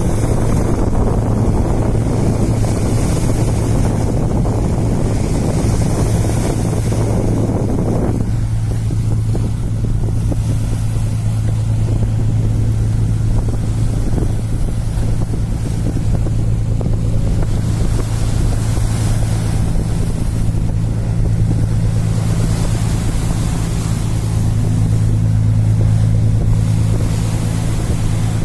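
Steady low drone of a small fishing boat's engine passing close offshore, over wind and waves washing on the rocks. A heavy rumble of wind on the microphone cuts off suddenly about eight seconds in.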